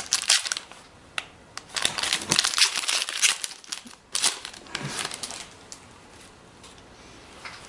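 Foil wrappers of Upper Deck hockey card packs crinkling as they are handled and opened, in a run of crackly bursts that die down after about five seconds.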